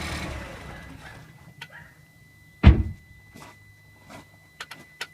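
Ford Fiesta ST's 1.6 EcoBoost four-cylinder engine switched off, its idle dying away within the first second. About 2.7 s in comes a single loud thunk, then a few light clicks and ticks over a faint steady high tone.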